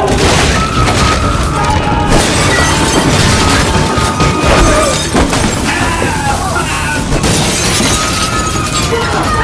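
Loud music over a dense, noisy wash of crashing and shattering sounds.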